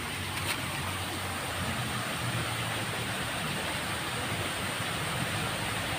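Steady rushing of flowing water in a small ditch, with a single sharp click about half a second in.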